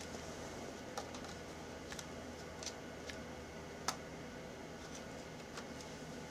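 Scattered light clicks of a small screwdriver and tiny screws against a laptop's plastic screen frame as screws are set and driven in, irregular with one sharper click about four seconds in, over a faint steady hum.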